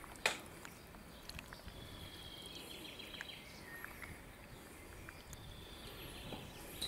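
Quiet outdoor ambience with faint bird chirps in the background, and one sharp click just after the start.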